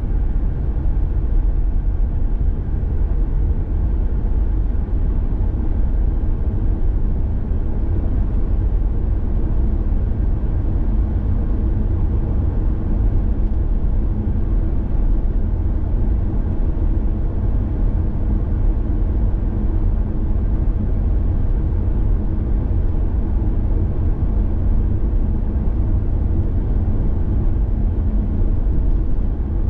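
Steady low rumble of a car driving along a road: tyre and engine noise with a faint steady hum.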